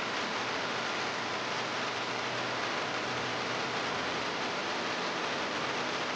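Steady rainfall, an even hiss with no single drops standing out.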